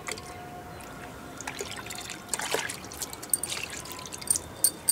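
A capful of liquid fertiliser trickling into a bucket of water, then a hand stirring the water, with sharp splashes near the end.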